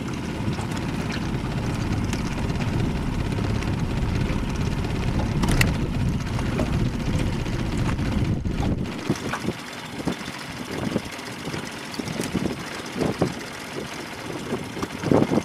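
Wind buffeting the microphone in an open boat: a steady low rumble that drops off sharply about nine seconds in, followed by short irregular gusts.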